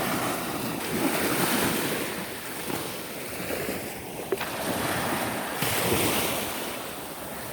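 Small waves washing onto the beach, rising and falling in loudness every couple of seconds, with wind on the microphone.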